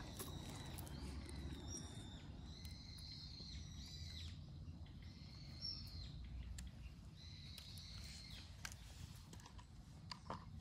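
Birds calling in the background with repeated held, high whistled notes, over a low steady rumble. Faint scattered clicks come from cats crunching dry kibble near the microphone.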